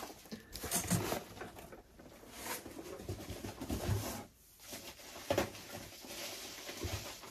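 Bubble wrap and cardboard packaging being handled, quiet crinkling and rustling with scattered light knocks.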